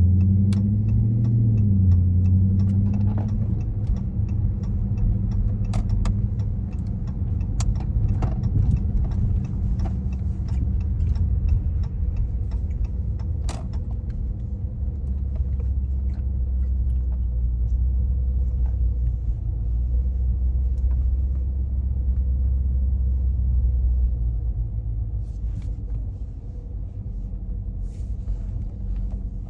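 Dodge car's engine and road rumble heard from inside the cabin while driving: the engine note climbs and drops over the first few seconds, then settles into a steady low drone that eases near the end. Scattered sharp clicks sound over the first half.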